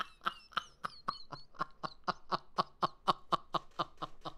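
A man laughing hard: a long, unbroken run of quick breathy ha-ha beats, about five a second, tailing off near the end.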